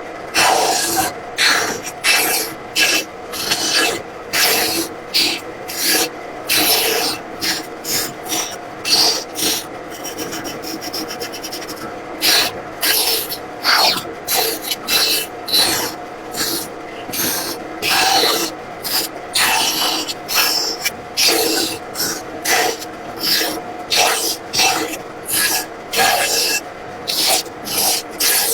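Wood being cut with rhythmic back-and-forth rasping strokes, roughly one to two a second, with a softer, even stretch near the middle.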